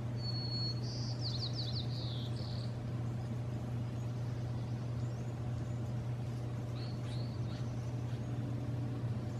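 A songbird sings a short whistled note and a quick falling trill near the start, and a couple of brief notes about seven seconds in, over a steady low hum that runs throughout.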